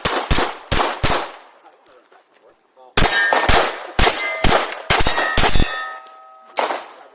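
Pistol fire on steel targets: three quick shots, a pause, then a rapid string of shots and one last shot near the end, with the hit steel plates ringing in steady tones after the later shots.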